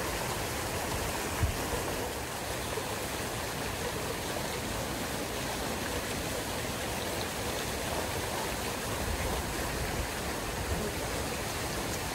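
Steady rushing hiss of water spraying from a pond fountain jet and splashing down, with one low thump about one and a half seconds in.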